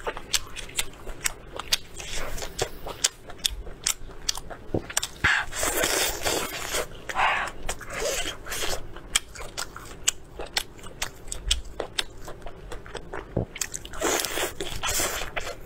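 Close-miked crackling and cracking of cooked prawn shell being broken and peeled by hand, with many sharp clicks, mixed with chewing and biting. The noise thickens into denser stretches a third of the way in and again near the end.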